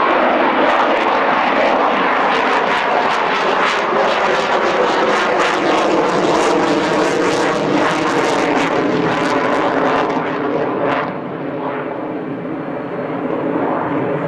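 Russian jet fighter's engines during a low-speed, high-alpha display pass: a loud, rough rush with rapid crackle, easing a little about eleven seconds in and then building again.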